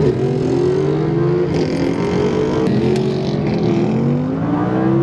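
Audi R8 with an aftermarket Soul Performance exhaust, running loud, its pitch climbing slowly and dipping briefly about a second and a half in.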